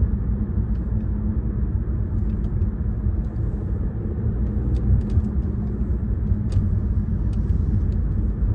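Tyre and road noise from a Citroën C5 Aircross driving, a steady low rumble with a few faint light ticks.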